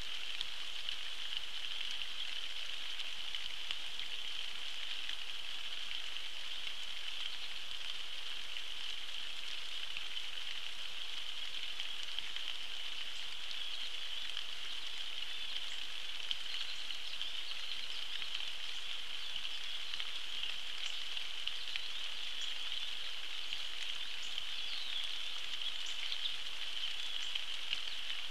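Steady rain falling on the surface of a pond, an even hiss of countless small drops.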